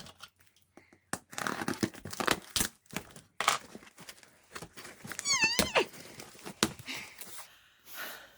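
Packaging being torn and crinkled open by hand in irregular rips and rustles, a hard-to-open box. A short, wavering animal call sounds about five seconds in.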